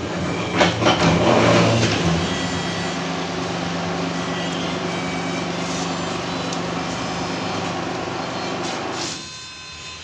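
Electric paper shredder motor running with a steady hum, crackling loudly as a batch of ballot papers is fed through in the first two seconds, then switched off about nine seconds in.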